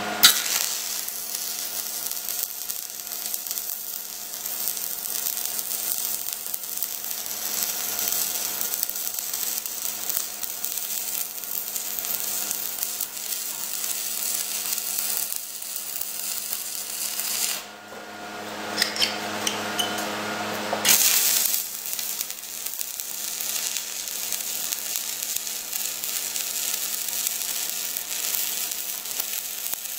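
Stick-welding arc crackling and hissing steadily from an Esab 215ic welder burning a 3/32 electrode on steel. The arc goes out about seventeen seconds in, catches briefly a couple of times, then burns steadily again from about twenty-one seconds to near the end.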